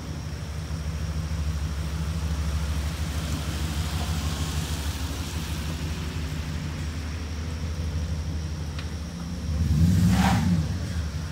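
Vehicle engines running at low speed on a wet road, a steady low hum, with a pickup truck growing loud as it drives up close near the end.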